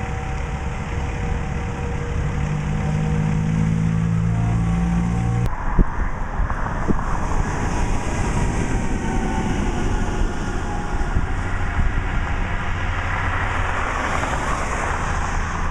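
A semi-truck's diesel engine idling with a steady low hum; about five seconds in it cuts off suddenly, giving way to steady road and wind noise with a car driving past near the end.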